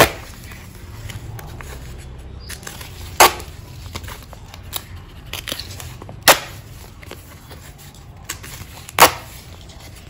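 Cut paper shipping labels being sorted by hand on a desk: four sharp slaps of paper about three seconds apart, with light paper rustling and small ticks between.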